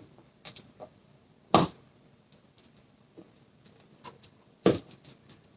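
Plastic food containers and lids being handled, giving scattered light clicks and taps with two sharper knocks, one about a second and a half in and one near the end.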